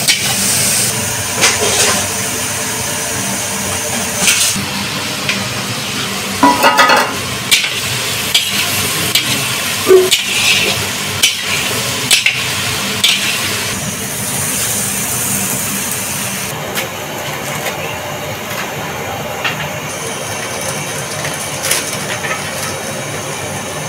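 Diced potatoes and cauliflower sizzling in oil in a large iron kadai, with a metal spatula scraping and clanking against the pan as they are stirred; the scrapes come mostly in the first half.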